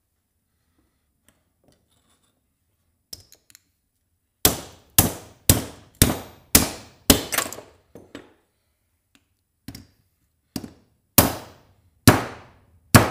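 Hammer blows breaking apart scrap quick-connect fittings: a few light clicks, then a run of sharp strikes about two a second, each ringing briefly, a short pause, and several more strikes near the end.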